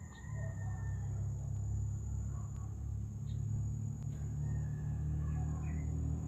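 Steady low rumble under the thin, unbroken high trill of crickets.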